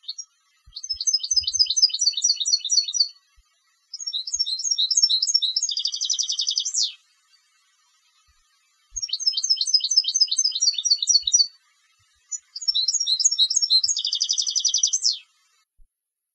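A contest European goldfinch sings four phrases of rapid, repeated high twittering notes with short pauses between them. The second and fourth phrases end in a dense buzzing trill capped by a quick rising note.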